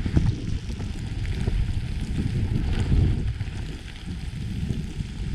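Wind from a snowstorm buffeting the microphone in uneven, rumbling gusts.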